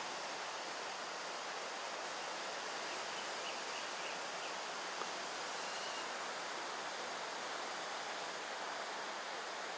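Steady evening hiss of insects with a constant high-pitched band, and two faint short high calls, about a third of the way in and again just past halfway: a buffy fish owl fledgling begging to be fed.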